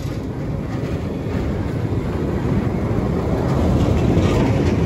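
Historic electric tram no. 536 running along the track and passing close by, the rumble of its wheels on the rails and its running gear growing steadily louder as it nears.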